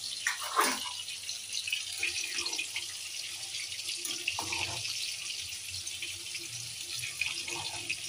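Pan of vegetable biryani steaming and simmering with a steady hiss, while a spoon stirs the rice and scrapes the pan a few times so it doesn't stick to the bottom.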